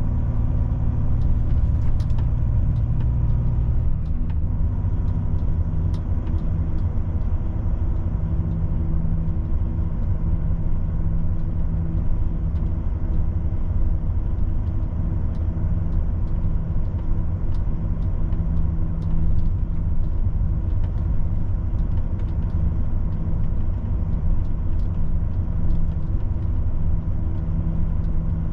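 Volvo FH truck's diesel engine running steadily under way, heard from inside the cab as a low hum and rumble; the engine note shifts about four seconds in.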